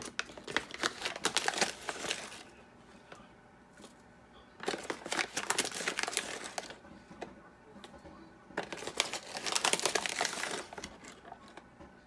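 Foil-lined coffee bag crinkling as it is handled while ground coffee is scooped out of it, in three bouts of a couple of seconds each.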